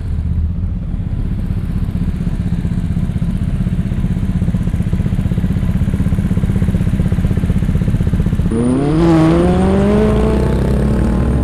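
Car engine running with a loud, deep rumble, then revved up about eight and a half seconds in, its pitch rising and then holding high.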